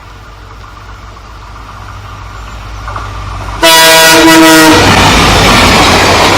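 Indian Railways locomotive horn sounding one loud blast of about a second, after a low rumble of the approaching train slowly grows louder. As the horn ends, the train passes at speed with a loud, steady rushing noise.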